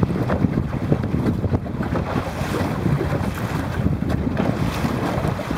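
Wind buffeting the microphone in gusts over choppy water, with waves splashing.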